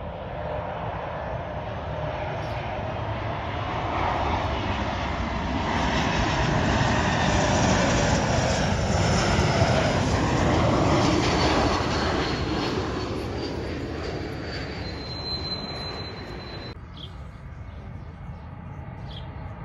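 Jet airliner passing low overhead on landing approach. The engine noise swells to a peak about halfway through and then fades, and a high fan whine slides down in pitch as the plane goes by.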